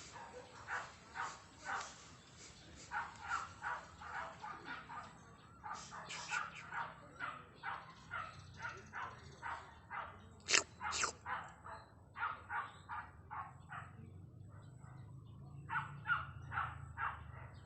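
Cat slurping sound: runs of short wet slurps, about two to three a second, with short pauses between runs and two sharper, louder ones about ten and a half seconds in.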